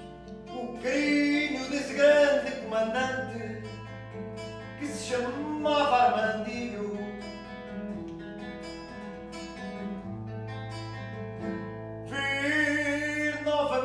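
Fado sung by a voice holding long, bending notes over plucked acoustic guitar accompaniment.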